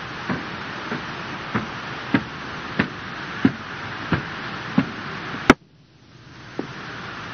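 Evenly spaced boot steps on a hard floor, about three every two seconds, over a steady hiss of background noise, typical of a cadet marching forward. A sharp click comes about five and a half seconds in, then the sound drops out for half a second before one more step.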